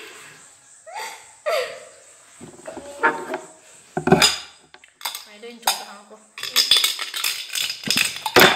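Upturned cups being picked up, shuffled and set down on a wooden table: separate knocks, then a run of clattering near the end.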